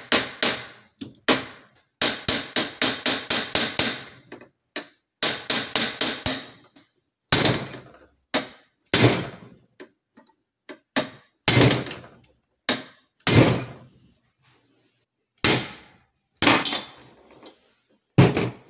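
Hammer blows knocking a stubborn hinge pin out of a PK9 pistol, the strikes carrying through a noisy plastic table. First come quick volleys of light taps, about five a second, then slower single hard blows about a second apart.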